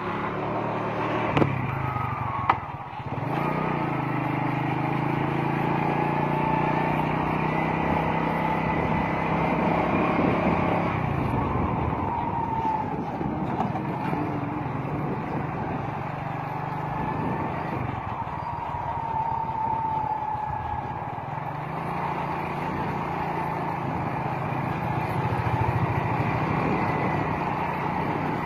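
Engine of a moving road vehicle running as it drives along. Two sharp knocks come about one and a half and two and a half seconds in, followed by a dip and rise in the engine note. The note changes again about eleven seconds in.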